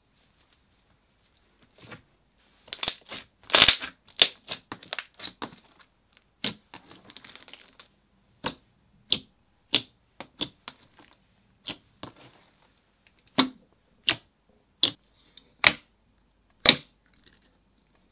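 Thick, glossy slime being squished and poked by fingers, making wet clicks and pops. A quick run of crackling pops comes about three seconds in, then single pops about once a second as fingertips press in and pull out.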